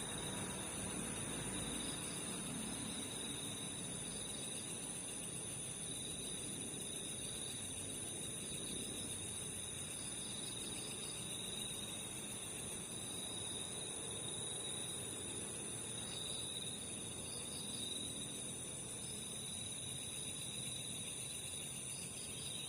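Steady chorus of night insects such as crickets, several high-pitched chirring tones that hold on without a break.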